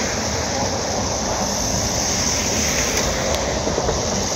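Steady vehicle noise at a street scene: a continuous rumble and hiss with no change in level.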